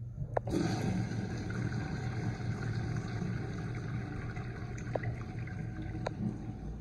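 A 2010s American Standard Maybrook 1.0 gpf urinal flushing through its manual chrome flushometer valve. A click as the valve is tripped about half a second in, then a steady rush of water washing down the bowl.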